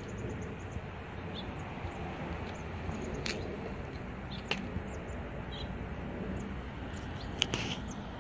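Outdoor background: a steady low rumble with a few faint clicks and brief high chirps scattered through it.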